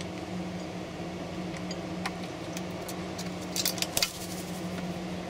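A crow's beak clinks and taps against a small glass jar of water as it dips its food, with scattered clicks and then a quick run of loud clinks about three and a half seconds in. A flap of wings follows at about four seconds as it takes off, over a steady low hum.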